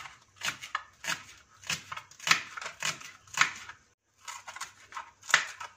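A knife chopping fresh coriander leaves and stems on a plastic cutting board: short, crisp cuts about two to three a second, with a brief pause about four seconds in.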